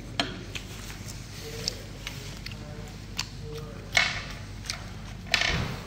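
Scattered light clicks and knocks, with two louder clatters about four and five and a half seconds in, the second lasting about half a second.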